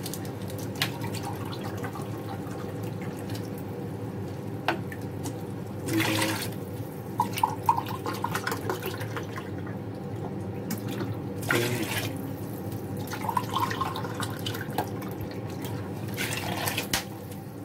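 Water poured from a mug into a pan of chicken drumsticks in masala, splashing into the sauce in several rounds, with the mug refilled from a plastic water bottle in between.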